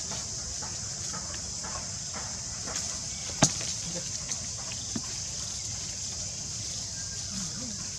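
Outdoor ambience: a steady high-pitched hiss with scattered sharp clicks and taps, the sharpest about three and a half seconds in.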